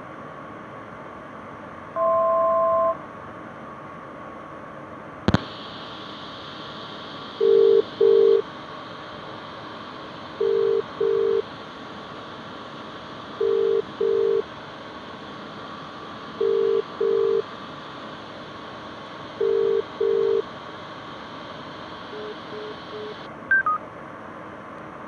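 Telephone ringing tone heard through the headset: five double rings, each pair repeating about every three seconds, over a steady hiss that opens with a click. A one-second two-tone beep comes first. Near the end there are a few fainter short beeps and a click as the line cuts off. A steady cabin drone runs underneath.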